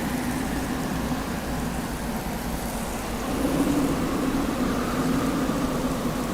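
Desert wind blowing steadily with a deep low rumble, gusting a little stronger about three and a half seconds in.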